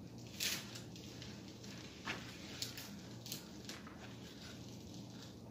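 Faint rustling and crackling of a diamond painting canvas and its paper as a hand smooths it flat, in a handful of short crinkles.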